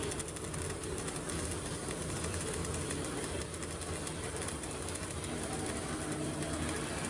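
CO2 MIG welding arc burning steadily on a vertical-up (3G) weld: a continuous crackling buzz without a break.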